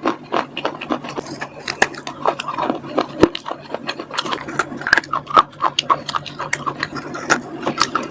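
Close-miked crunching as hard, crunchy bars are bitten and chewed: a dense run of sharp cracks and crackles, several a second.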